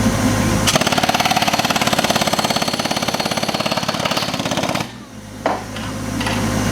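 Pneumatic air hammer driving a track spike into a new railroad tie, a rapid rattle of blows lasting about four seconds before it stops. A steady engine runs before and after the hammering.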